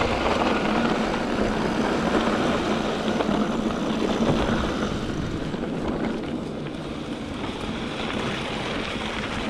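Mountain bike tyres rolling over a gravel and dirt trail, with wind rushing on the handlebar-mounted microphone, a steady noise that drops a little about halfway through.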